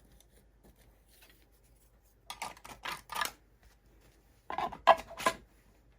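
Mouse sander sanding sheets and plastic divider tabs being handled and slid into a 3D-printed storage box: two short runs of clicks and scraping, about two seconds in and again about four and a half seconds in.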